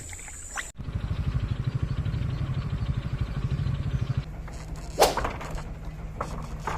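An engine running steadily with a fast, even pulse, settling to a steadier hum about four seconds in. A sharp knock comes about five seconds in.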